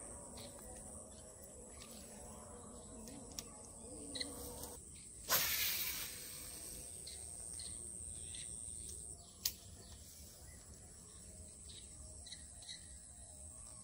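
A baitcasting rod is cast about five seconds in: a short, loud whoosh of rod and line running off the reel that fades within a second. A steady high insect drone runs underneath, and a single sharp click comes about four seconds later.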